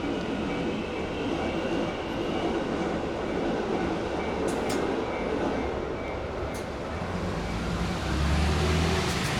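Keikyu electric train running past on the rails, a steady rumble of wheels and cars going by. A low hum swells about seven seconds in.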